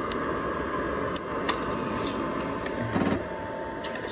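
ROEST sample roaster's cooling tray fan blowing air steadily through freshly dropped roasted coffee beans, with a thin steady whine and a few scattered sharp clicks.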